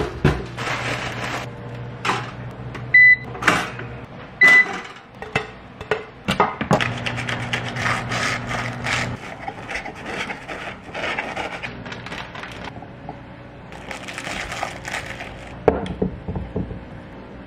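Kitchen sounds of a quick lunch being made: a toaster lever clicked down, a steady appliance hum, and two short electronic beeps about a second and a half apart, typical of a microwave keypad. Scattered knocks, clatter and rubbing of food and dishes being handled follow, including butter rubbed onto toast.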